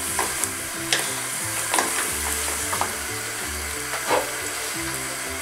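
Penne in a cream sauce sizzling in a frying pan while being stirred with two wooden spoons, with scattered scrapes and taps of the spoons against the pan about once a second. Background music underneath.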